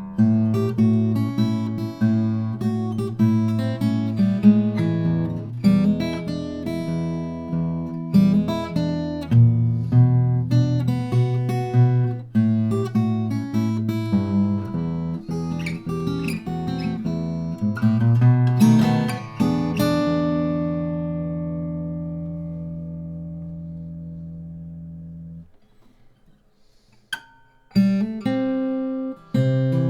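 Martin 0012-28 acoustic guitar being played, with picked notes and strummed chords. About two-thirds through, a chord is left to ring out and fade for several seconds, then damped abruptly. After a short near-silent pause with a couple of faint touches, the playing resumes near the end.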